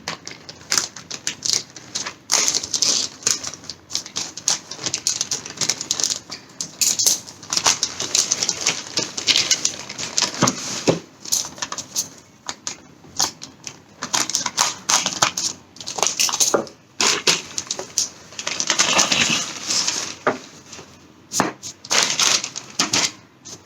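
Handling of a cardboard product box and its packaging: irregular clicks, taps and scrapes, with longer stretches of crinkling rustle about two seconds in and again near the end.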